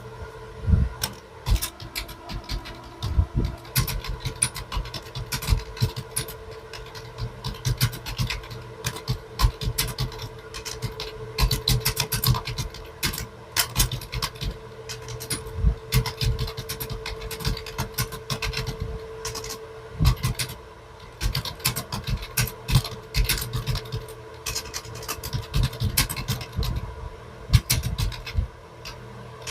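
Fast typing on a computer keyboard: a rapid, irregular stream of key clicks, over a steady hum.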